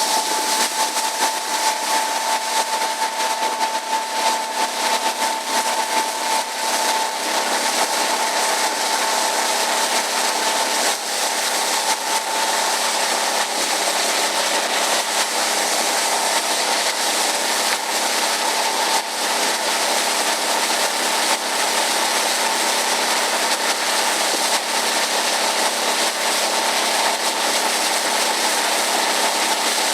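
A machine running steadily: a constant hiss with a steady whine held on one pitch.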